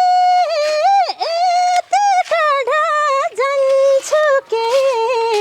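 A woman singing a slow Nepali song unaccompanied in a high voice, drawing out a line in long held notes with small turns and dips in pitch.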